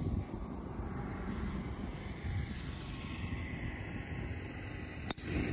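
Golf driver striking a teed ball: a single sharp crack near the end, over a steady low background rumble.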